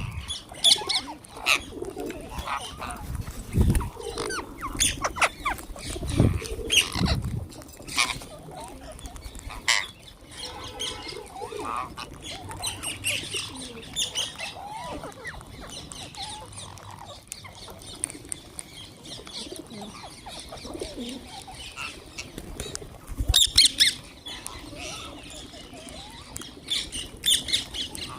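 Flock of wild green parrots calling, with frequent short, harsh squawks and chirps that come in bursts. There are a few dull low thuds in the first several seconds.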